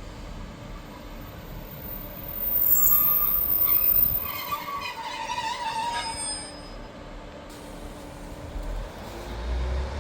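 A train passing the platform: a loud rush of wheels on rail about two seconds in, with high ringing, squealing tones that drop in pitch as it goes by, fading after about six seconds to a lower rumble.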